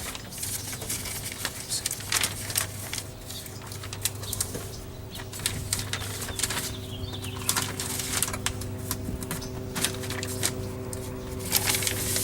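Plastic door water shield crinkling and rustling in irregular crackles as it is handled and pressed onto its adhesive, over a steady low hum.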